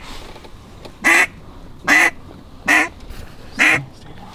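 A duck call blown in the blind: four loud mallard-hen quacks in an even series, a little under a second apart.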